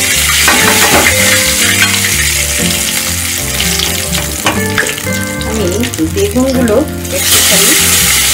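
Hot oil sizzling in an iron kadai as black cumin seeds are dropped in and stirred with a metal spatula. About seven seconds in the sizzle jumps suddenly louder as brinjal slices go into the hot oil.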